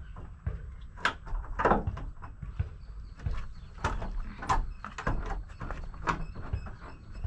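Irregular knocks, clunks and scrapes as a window frame is pushed and worked into the opening cut for it in a motorhome's body.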